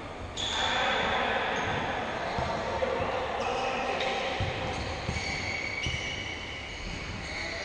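Futsal game in a sports hall: the ball knocks off feet and bounces on the court, sneakers squeak in short high tones on the floor, and players call out.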